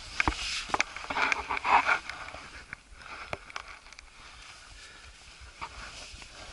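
Scuffs, scrapes and sharp knocks of a climber's hands and shoes on limestone rock, with rustling, busiest in the first two seconds and then sparser.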